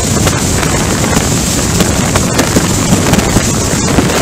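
Hurricane-force wind buffeting the microphone: a loud, unbroken rush with many small sudden gusts.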